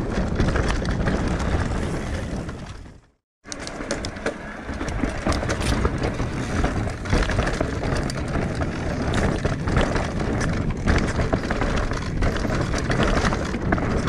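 Riding noise of an e-mountain bike on a rough trail: tyres over roots and stones, with the bike rattling and clattering throughout. The sound fades out about three seconds in and cuts back in abruptly a moment later.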